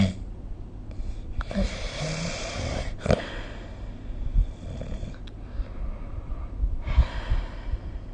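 A person snoring in their sleep: two long, breathy snores, one starting about a second and a half in and another near the end.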